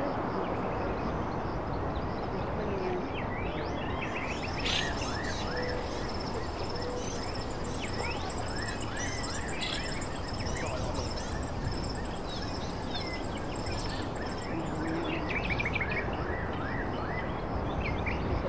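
Several birds chirping in short rising and falling notes, with a high note repeated several times a second for a stretch in the middle, over a steady rushing outdoor background noise.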